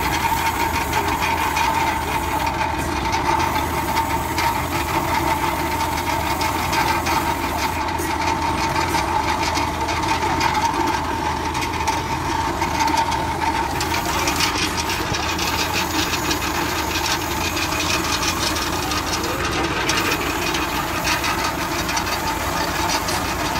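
Tractor's diesel engine running steadily, with a constant fast mechanical rattle and hiss.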